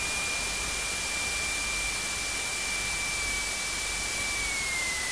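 Piper Pacer cabin noise in the landing flare: a steady hiss of idling engine and rushing air, with a thin high whine that drops slightly in pitch about four seconds in as the plane slows just before touchdown.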